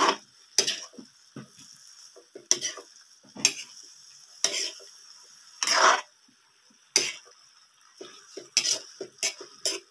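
Metal spatula scraping and tossing green beans and broccoli around a metal wok, about one stroke a second, over a steady sizzle of the vegetables frying in sauce.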